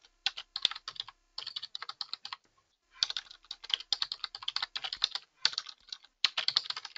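Typing on a computer keyboard: quick runs of keystrokes with brief pauses between them, the longest about two and a half seconds in.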